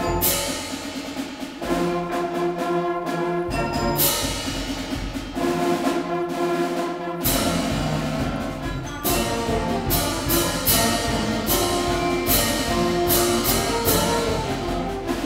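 Middle school concert band playing a march: brass and woodwinds hold chords over sharp percussion strikes that ring out, with the low instruments coming in heavier about halfway through.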